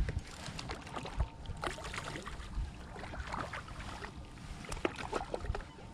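Water splashing and lapping against a plastic fishing kayak's hull, with scattered small clicks and knocks.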